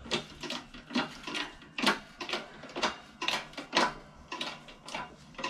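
Hydraulic bottle jack of a shop press being pumped by hand, its pump stroke clicking about twice a second, as it forces a new cylinder liner down into an OM617 diesel block.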